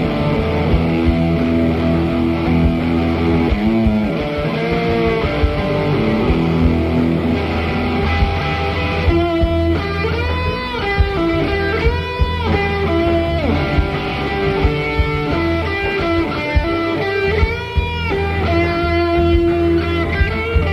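Electric guitar played through a Fuzz Face fuzz pedal and a wah-wah pedal, soloing over a steady low backing, with notes that swoop up and down in pitch about halfway through and again near the end.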